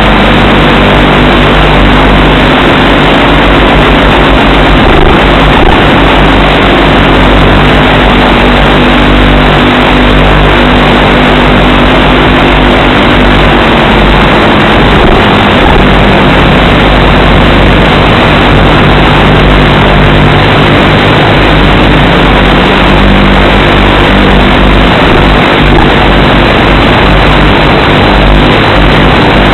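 Model airplane's motor and propeller running steadily in cruise, picked up by the onboard FPV camera's microphone: a constant, loud, distorted drone mixed with wind rush.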